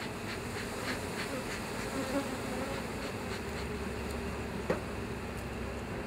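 Honeybees buzzing steadily over the frames of an open hive, with one brief sharp sound about five seconds in.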